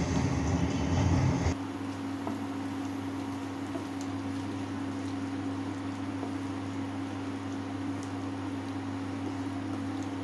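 Wooden spatula stirring potato and pointed gourd curry in a kadai, the spiced masala sizzling in its separated oil during the braising (kasha) stage. After about a second and a half the sound drops suddenly to a quieter steady low hum.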